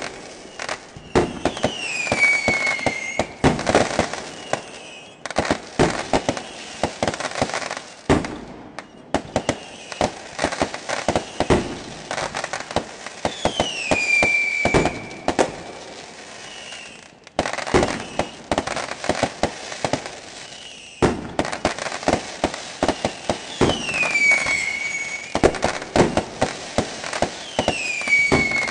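Fireworks going off: dense, rapid bangs and crackling. A short falling whistle recurs about four times, and the sound stops and restarts abruptly a few times.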